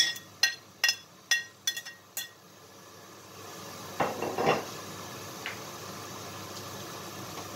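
A metal utensil clinking against a plate six times in about two seconds, knocking diced peppers and chili off it into the pan. Then a steady hiss from a pressure cooker sets in, with a short louder rush about four seconds in.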